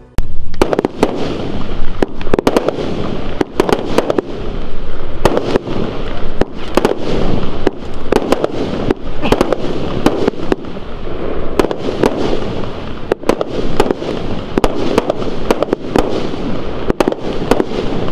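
Geisha Pyrorebels 'Wild Geisha' consumer fireworks cake (multi-shot battery) firing: a rapid, uneven string of sharp bangs and pops over a continuous rumble, starting about half a second in.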